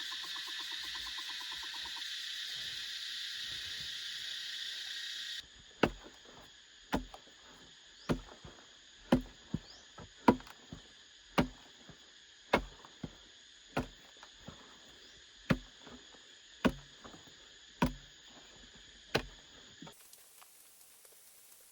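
Steady buzzing of forest insects, then, after a sudden cut about five seconds in, a hand tool striking over and over at about one blow a second, around a dozen sharp blows, as in chopping or digging, with the insects fainter behind.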